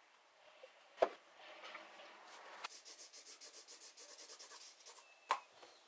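Pencil scratching on paper in rapid, even sketching strokes, about five a second, with a sharp knock about a second in and another near the end.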